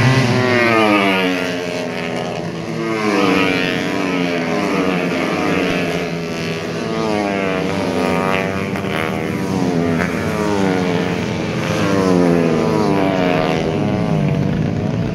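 Several tuned 130cc four-stroke racing motorcycles passing at full throttle. Their engines overlap, each climbing in pitch through a gear and dropping back at the shift, over and over.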